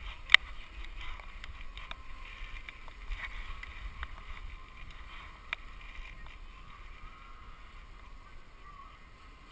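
Rustling and rubbing from a GoPro action camera strapped to a dog as the dog shifts about, with a sharp click about a third of a second in and a smaller one about five and a half seconds in.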